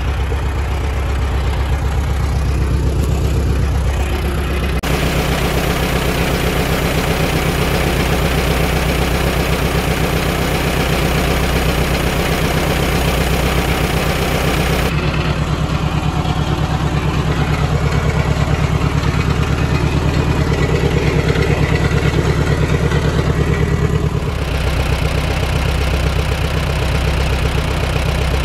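Case VAC tractor's four-cylinder engine idling steadily. For several seconds in the middle, a loud hiss of compressed air runs as an air chuck fills the rear tire.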